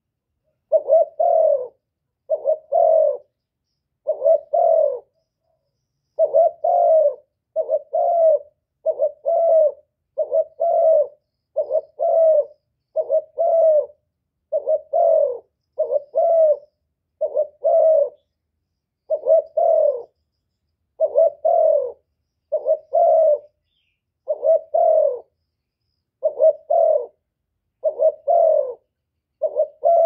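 Spotted dove cooing: a short two-part coo, the second part stronger and falling slightly, repeated evenly about once every second and a half.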